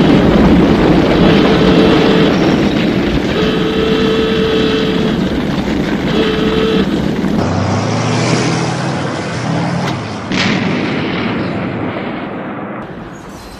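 A loud, dense wartime roar with short stretches of steady tones, cutting about seven seconds in to a lower humming sound. A single sharp bang follows around ten seconds in, then the sound fades.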